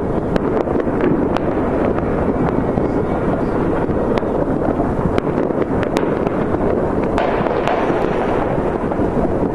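New Year's Eve fireworks and firecrackers going off all over a city at once: a dense, unbroken rumble of many far-off bangs, with about a dozen sharp cracks standing out from it.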